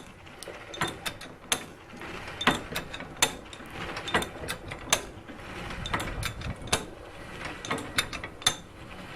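Antique lever-operated forge blower being pumped by hand: the clutch in its drive wheel clicks about once a second with each stroke of the lever, over a faint whirr of the turning mechanism.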